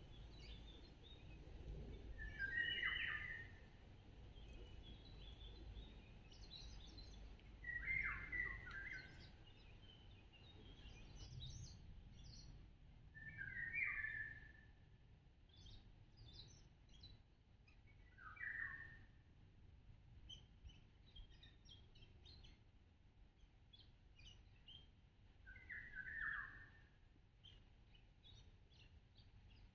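Birds calling: one bird repeats a short call five times, about every five seconds, with fainter high chirps from other birds in between, over a low background rumble.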